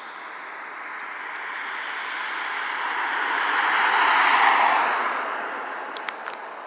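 A vehicle passing at speed: road and tyre noise swelling to a peak about four and a half seconds in, then fading, with a couple of sharp clicks near the end.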